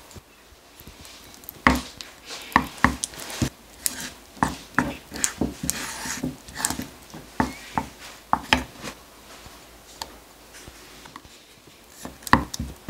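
Wooden spoon stirring thick, lumpy cake batter in a ceramic bowl, knocking and scraping against the bowl in quick, irregular taps. The taps pause about nine seconds in and start again near the end.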